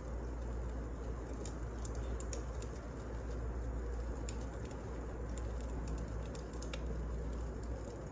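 Wood burning in a fireplace, crackling: irregular sharp pops and snaps over a steady low rumble of the fire.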